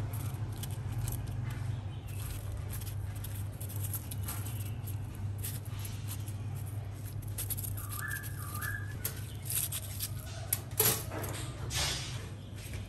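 Crushed ice crunching and shifting under the fingers as leaves are pressed into it, with a few sharper crunches near the end, over a steady low hum. A brief two-pitch whistle-like chirp about eight seconds in.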